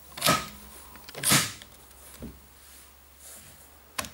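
Sako TRG M10's adjustable butt pad being pulled out on its rods. Two loud sliding clacks about a second apart, a fainter one after, and a sharp click near the end.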